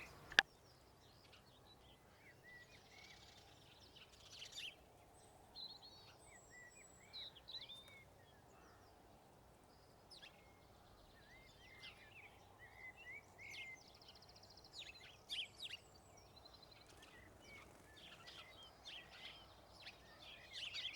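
Faint birdsong: many short chirps and whistles from several birds, scattered over a faint steady hiss, with one sharp click about half a second in.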